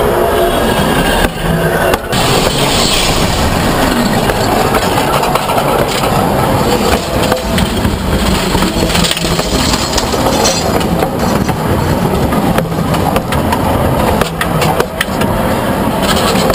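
Narrow-gauge railway cars rolling directly overhead: steel wheels rumbling loudly on the rails, with irregular sharp clicks and clatter as the wheel sets pass.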